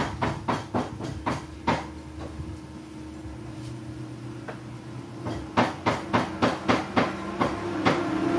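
Cleaver chopping on a wooden block: sharp knocks about three a second, in a run at the start and another from about halfway to near the end. A steady hum runs underneath.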